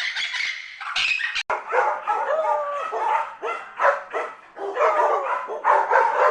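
A run of rapid, high squawking calls, then about a second and a half in an abrupt change to repeated short bark- or yelp-like animal calls with a wavering pitch.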